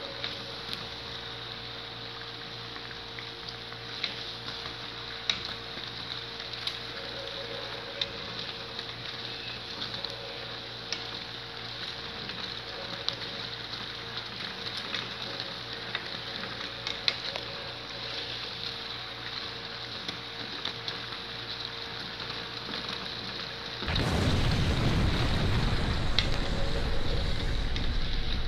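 Luqaimat dough balls deep-frying in hot oil: a steady sizzle with scattered sharp pops and crackles. Near the end a much louder low rushing noise comes in over it.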